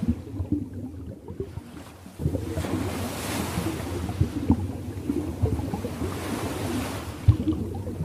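Water washing and splashing in waves, with many small low splashes and a wave surging in about two seconds in.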